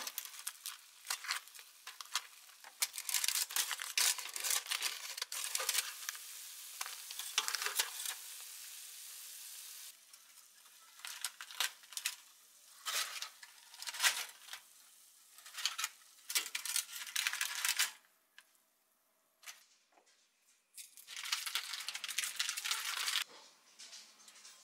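Hot, freshly air-fried chicken pieces sizzling in a parchment-lined air fryer basket while metal tongs lift them out, with tong clicks and paper rustling. There is a short lull about three quarters of the way through.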